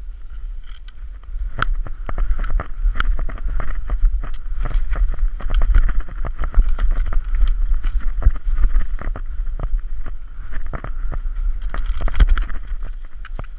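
Skis sliding and clattering on snow during a downhill run, with many short knocks and a steady rush of wind buffeting the microphone.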